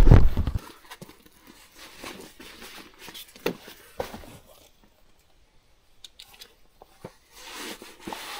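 Handling noise on the camera's microphone: a loud rubbing rumble at the start, then scattered light knocks and rustles of clothing.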